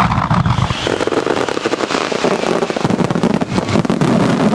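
Starmine fireworks barrage: many shells bursting in quick succession, dense overlapping bangs and crackling with no pause.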